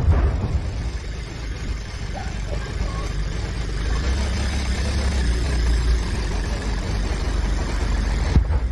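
A steady low rumble with a faint hiss over it, broken by a sharp click at the start and another near the end.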